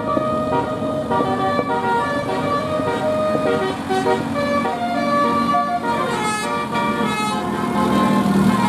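Bus telolet horn playing a tune: a set of pitched air horns stepping quickly from note to note, with a falling glide about six seconds in. A steady low hum runs beneath.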